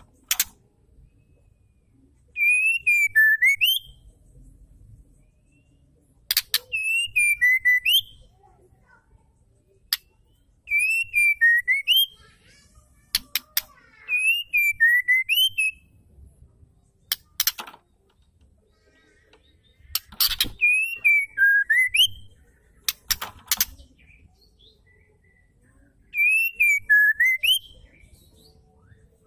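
White-rumped shama calling: a short phrase of a wavering whistle that dips and then sweeps up, with fine high twittering over it, repeated about every four seconds. Sharp single clicks come between the phrases.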